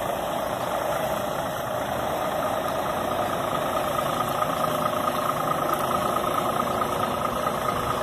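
DAF XF 460 tractor unit's diesel engine running at low revs as the truck drives slowly and comes closer, with a steady high whine that grows stronger about halfway through.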